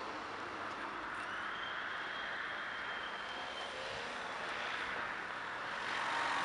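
Steady outdoor background noise with a faint high tone from a metal detector, held for about two and a half seconds starting about a second in, as its coil is swept over the pit.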